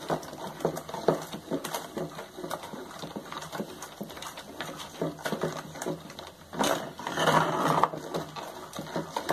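Wooden spoon stirring a thick, bubbling mash of bananas and sugar in a metal saucepan, with repeated small knocks and scrapes against the pan. A louder noisy stretch lasting about a second comes near the end.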